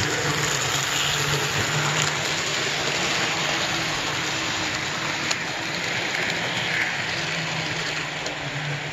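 HO scale model train running past on sectional track: a Pennline PRR T1 locomotive pulling American Beauty Broadway Limited passenger cars. Metal wheels rolling on the rails make a steady, hiss-like clatter over a low hum, with a few light clicks, the plainest about five seconds in.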